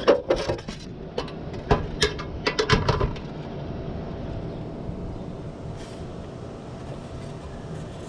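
Thin aluminum sheet handled and bent by hand: a run of sharp clicks and metallic crinkles over the first three seconds, then only a steady low background rumble.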